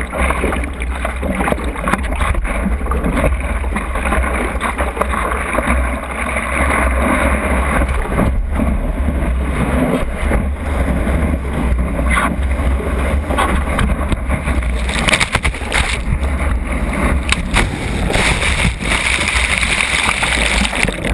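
Water sloshing and splashing against the nose of a stand-up paddleboard, right at a board-mounted GoPro, with wind buffeting the microphone as the board rides a wave. Now and then water slaps the board sharply.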